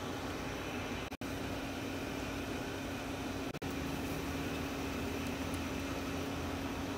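Steady mechanical hum with a constant low tone, like a fan or air conditioner running. It drops out abruptly for a split second about a second in and again midway, where one shot cuts to the next.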